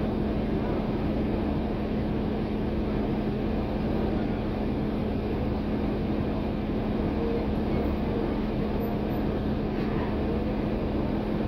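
Steady drone of a NABI 416 transit bus's diesel engine and drivetrain, heard inside the passenger cabin, with a constant low hum throughout.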